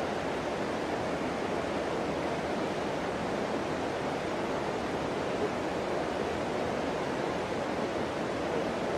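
Steady rushing of flowing river water, an even hiss with no breaks.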